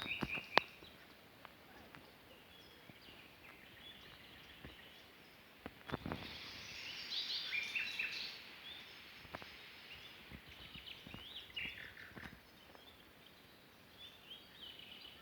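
Small birds chirping, with short rapid calls clustering about six to eight seconds in and again around eleven to twelve seconds, over a faint steady background. A few sharp clicks or knocks stand out.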